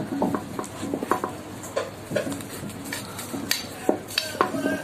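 A spatula scraping and tapping against a stainless steel cake ring and a bowl while spreading whipped cream: irregular clicks and light knocks, some with a brief metallic ring.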